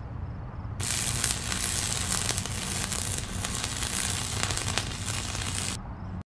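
Intro sound effect: a crackling, sizzling hiss that starts about a second in and stops near the end, over a steady low hum.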